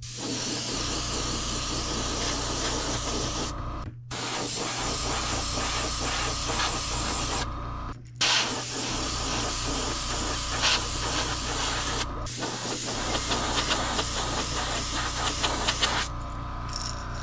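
Airbrush spraying paint with a steady hiss. The spray breaks off briefly about every four seconds, over a low steady hum.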